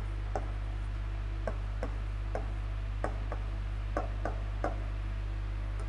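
Stylus tip tapping and clicking on the glass of an interactive whiteboard screen while writing: a dozen or so light, irregular ticks over a steady low mains hum.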